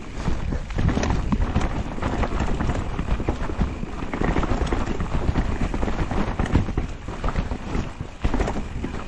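Mountain bike descending a wet, rough trail: a steady clatter of knocks and rattles from the tyres and bike over the ground, with wind noise on the microphone.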